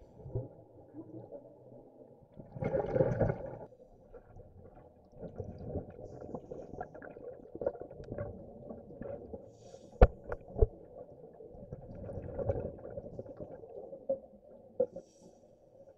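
Underwater recording of a scuba diver's exhaled bubbles, rumbling and gurgling in bursts about ten seconds apart. There are a couple of sharp knocks about ten seconds in, likely the camera or gear bumping.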